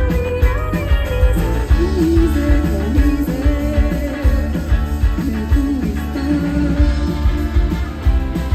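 Rock band music: guitar over bass and a steady drum beat, with a melodic lead line.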